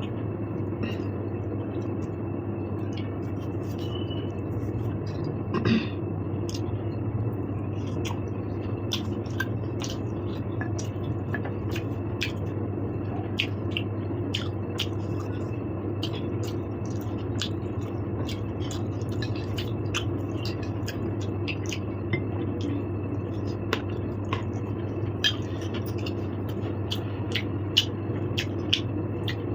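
Cutlery clicking and scraping against a plate and bowl during a meal, with chewing, over a steady low hum. The clicks are short and irregular, a few a second at times.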